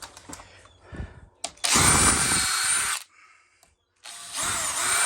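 Power drill-driver driving in screws to secure a newly fitted deadlock, in two runs of about a second each.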